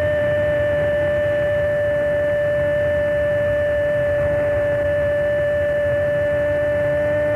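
Radio football commentator's long, held goal shout: one unbroken note sustained at a steady high pitch without a break for breath.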